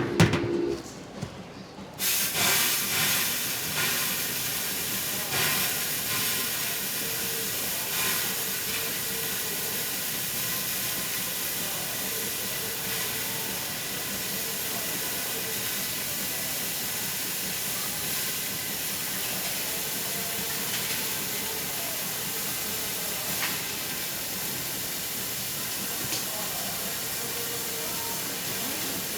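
Steam hissing steadily from a steamed-bun steamer, starting suddenly about two seconds in after a couple of clatters.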